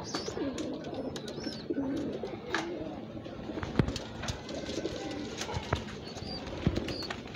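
Domestic pigeons cooing, low repeated coos, with scattered sharp clicks and taps.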